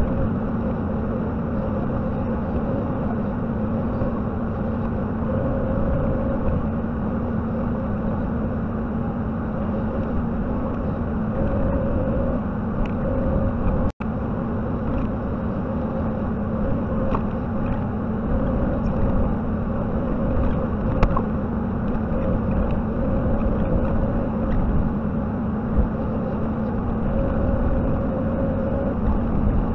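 JCB 55Z mini excavator's diesel engine running steadily at working speed, with a higher whine that rises and falls as the machine works. The sound cuts out for an instant about halfway, and there are a few light knocks later on.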